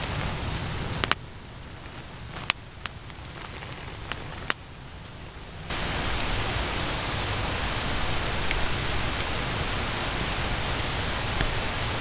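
A steady hiss drops away about a second in and comes back around the middle. In the quieter stretch a handful of sharp, isolated crackles and pops come from the small wood fire in a bushbox stove.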